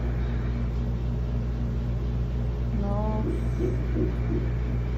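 Ultrasound machine's Doppler audio playing the heartbeat of an eight-week embryo: a steady pulsing whoosh over a low hum. Faint voices are heard about three seconds in.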